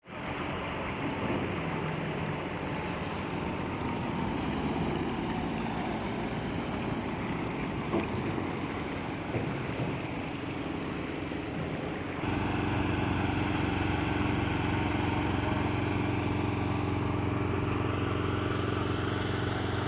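A steady engine hum mixed with wind noise on the microphone. About twelve seconds in, the hum steps up suddenly and becomes louder and more even.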